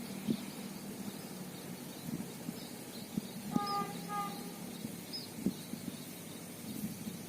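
Quiet outdoor ambience with a steady low hum, scattered soft clicks and a few faint high bird chirps. About halfway through, two short pitched toots sound in quick succession.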